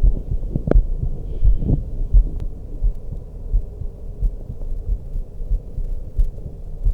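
A woman's heartbeat heard through a stethoscope: regular low thumps at about eighty-five beats a minute. A faint steady hum lies under it, and there are a few light clicks in the first few seconds.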